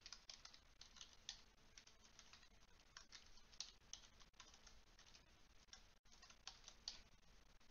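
Faint typing on a computer keyboard: light, quick key clicks in a few short, irregular runs.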